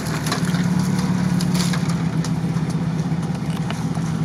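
Off-road 4x4 engine idling steadily, with a few faint clicks and knocks.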